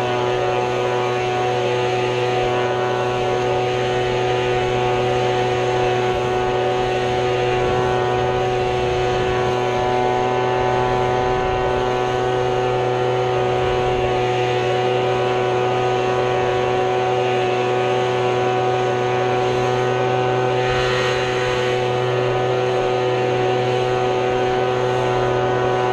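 Small lawn-equipment engine running steadily at full throttle, one unchanging drone.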